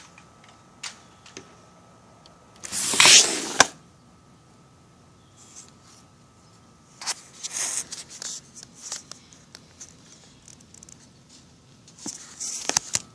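Camera handling noise: bursts of rubbing and rustling on the microphone. The loudest comes about three seconds in, a cluster follows from about seven to nine seconds, and another comes near the end. A faint steady tone runs underneath.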